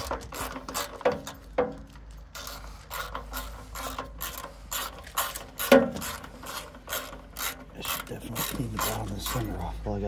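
Hand ratchet wrench with a 10 mm socket clicking in quick, even runs as it backs off a nut holding a motorcycle's rear turn signal assembly, about three or four clicks a second.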